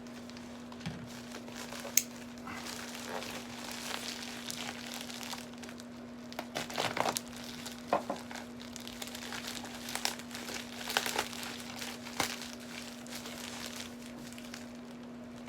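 Packing material around a parcel being handled and unwrapped by hand, crinkling and rustling in irregular bursts, with a sharp click about two seconds in. A steady low hum runs underneath.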